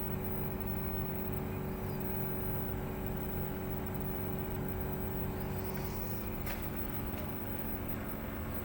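Outdoor condensing unit of a Samsung WindFree 12,000 BTU inverter split air conditioner running with a steady hum of several tones and a low pulsing vibration. The vibration comes from the unit's own sheet-metal casing, with nothing touching it that would explain it.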